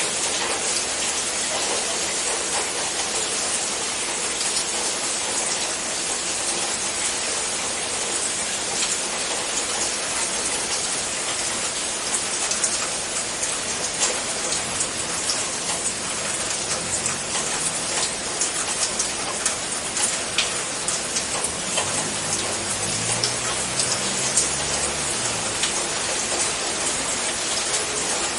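Steady heavy rain: a continuous hiss with many small drop ticks.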